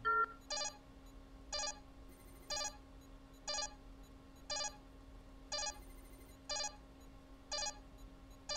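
Starship computer's auto-destruct countdown signal: a short electronic beep about once a second, in step with the timer, over a steady low hum.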